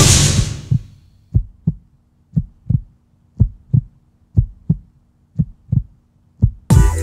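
Heartbeat sound effect: low paired thumps, lub-dub, about once a second, over a faint steady hum. A crash at the start fades out over the first second.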